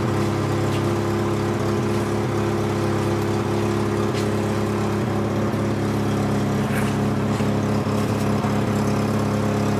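A large engine running steadily at an even idle-like speed, with a few faint clicks over it.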